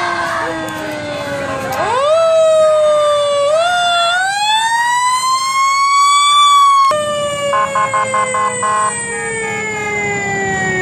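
Fire engine siren sounding: its pitch climbs in steps for several seconds, cuts off sharply about seven seconds in, then slides slowly down in pitch.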